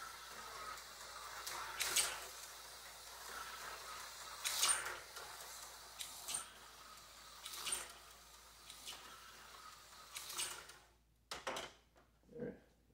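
Aurora HO slot car running laps on a small plastic oval, its tiny electric motor whining steadily with a sharp clack every couple of seconds as it goes round. The motor cuts out about eleven seconds in, followed by a few short knocks as the car is handled on the track.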